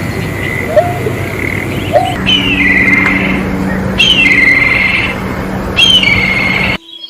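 Birds calling: a few short low hooked notes, then a louder call that slides downward into a brief trill, repeated about every two seconds, three times in all. Behind them is a steady background noise with a low hum, and the sound cuts off abruptly near the end.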